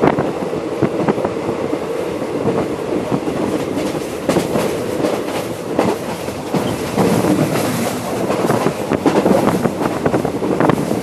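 Train rolling along the track, heard from aboard: a steady rumble of wheels on rails with frequent irregular clacks.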